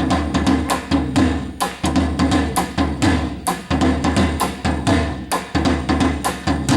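Korean traditional percussion ensemble playing drums, including the buk barrel drum, in a fast, dense rhythm of sharp strokes over a deep booming bass.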